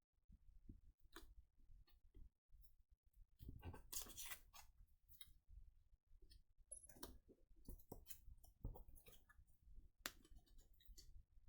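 Faint scattered clicks, taps and short rustles of card and paper pieces being handled and glued down on a craft table.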